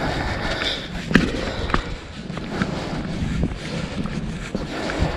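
Footsteps crunching in cold, powdery snow, a series of irregular crunches, with wind buffeting the microphone.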